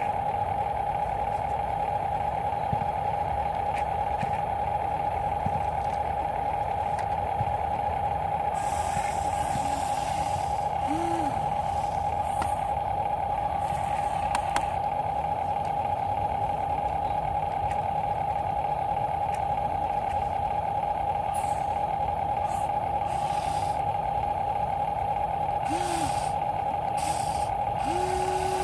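Radio-controlled model trucks and construction machines running: a steady high-pitched electric whine, with several short hisses in between.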